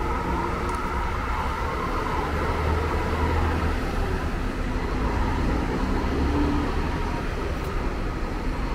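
Diesel engine of a Marcopolo Paradiso New G7 1600 LD coach running as the bus pulls away across the lot: a steady low drone, its pitch lifting a little about six seconds in.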